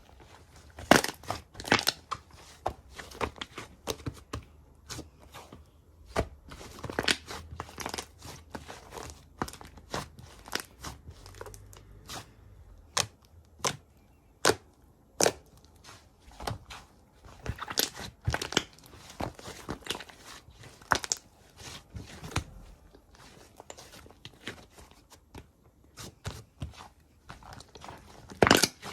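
Slime being pressed and stretched by hand, making irregular sticky clicks, pops and crackles.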